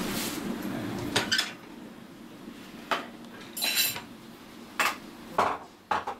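Kitchen clatter: several separate clinks and knocks of dishes and cutlery, spread unevenly over a few seconds. A steady rushing noise underneath cuts off about a second and a half in.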